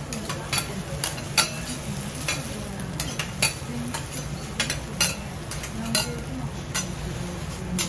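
Steel spatulas clicking and scraping on a flat-top teppan griddle as Hiroshima-style okonomiyaki are shaped, in irregular strokes about every half second, over the steady sizzle of the frying layers and a low hum.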